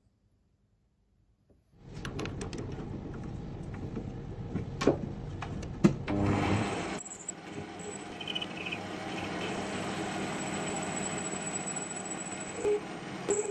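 Small metal lathe turning the outside of a steel tube held in its three-jaw chuck: a steady running and cutting noise with a thin high whine, preceded by a few sharp knocks and clatter. The first second or so is near silent.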